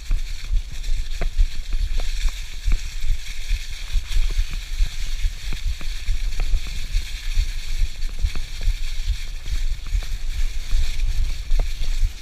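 Mountain bike rolling along a leaf-covered dirt trail: a steady hiss of tyres through dry leaves over a low rumble of wind buffeting the action-camera microphone, with scattered sharp clicks and rattles from the bike over bumps.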